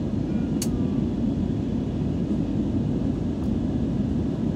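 Steady cabin noise of a jet airliner climbing after takeoff, heard from a window seat: a deep, even rumble of engines and airflow. A sharp click sounds about half a second in.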